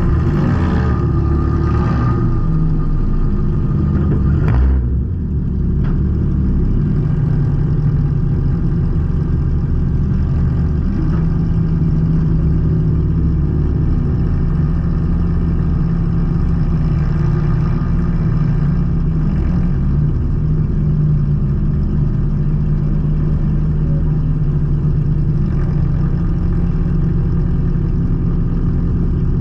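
Junk race car's engine running, heard from inside its stripped cabin as a steady low rumble. It is louder and harsher for the first five seconds, then settles into an even idle.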